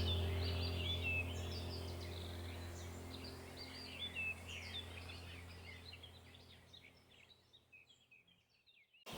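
Birds chirping over a low steady drone, both fading out slowly to silence near the end.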